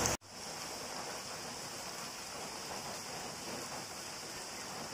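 Pork chops deep-frying in hot oil in a pan: a steady sizzle. The sound drops out for an instant just after the start, then the sizzle carries on evenly.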